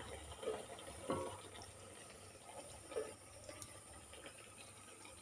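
Hot oil sizzling faintly in a kadai as a semolina pitha deep-fries, with a soft knock about a second in.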